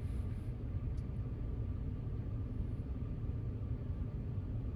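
A car running, a steady low rumble of engine and road noise.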